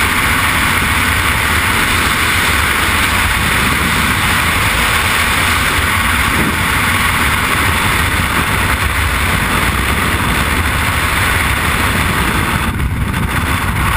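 Freefall wind rushing over a worn camera's microphone: a loud, steady rush of wind noise that does not let up.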